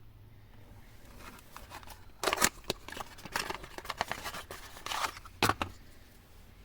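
Ignition key and switch being handled: a run of irregular clicks, rattles and scrapes, with two louder bursts, one about two seconds in and one near the end.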